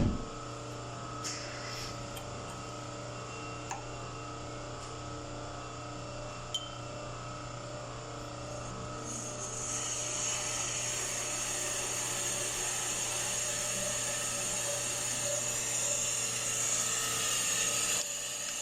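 Brake lathe running with a steady motor hum while resurfacing a front brake rotor disc. About ten seconds in, the cutting bit bites into the rotor and a loud high hiss rises over the hum, dropping away just before the end. A few light clicks come in the first seven seconds.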